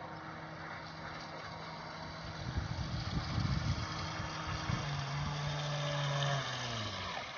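Carp bait boat's electric propeller motors running with a steady hum, and a low rough rushing noise in the middle. Near the end the hum falls in pitch and stops as the motors wind down.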